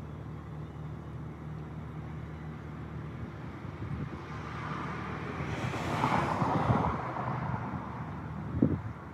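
A vehicle passing on the road, its noise rising and fading over about three seconds, over a steady low hum. A single sharp knock comes near the end.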